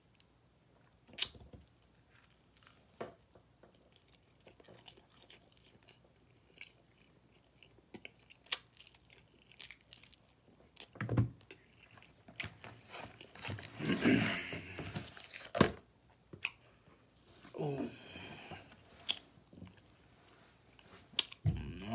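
Close-up chewing of barbecue-sauced pork ribs, with sharp wet mouth clicks scattered throughout. A couple of brief denser stretches with some voice-like sound come past the middle.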